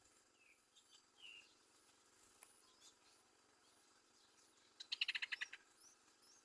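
Yellow-vented bulbul calls: a few faint short chirps, then a quick burst of about a dozen rapid notes about five seconds in.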